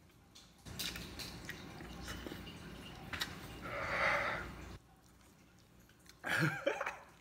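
A man chewing a mouthful of spicy instant noodles and breathing hard against the burn, with a loud open-mouthed exhale about four seconds in. A short voiced groan follows near the end.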